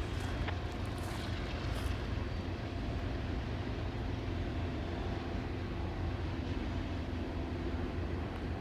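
Steady low drone of a GE ES44AC diesel-electric locomotive's engine as a freight train runs by, with a few light clicks in the first two seconds.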